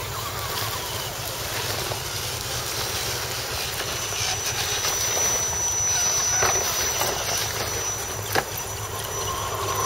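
Radio-controlled electric scale crawler trucks driving slowly over dry leaf litter: the crackle and rustle of tyres on leaves under a thin, steady high whine that sets in about two and a half seconds in, with a couple of sharp clicks in the second half.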